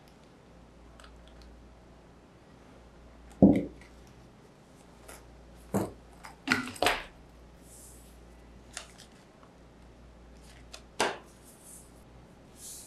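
Handling noise from a Movo HM-M2 handheld microphone and its soft zippered pouch in gloved hands: scattered knocks and soft rustles. The loudest is a thud a few seconds in, with a cluster of knocks midway and one more near the end.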